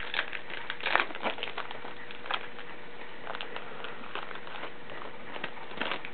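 Crinkling and rustling of a baseball-card pack wrapper and its cards being handled: scattered small crackles and clicks, busiest about a second in.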